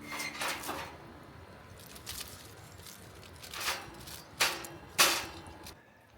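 Acoustic guitar music fading out in the first second, then a handful of short scuffing or crunching noises spread a second or so apart, the loudest two near the end.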